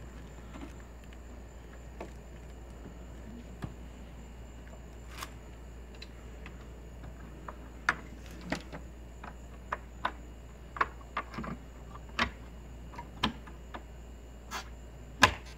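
Scattered sharp clicks and taps, sparse at first and more frequent in the second half, as a boat's deck hatch is closed and its latch handles are worked to press the lid down onto a fresh sealing strip.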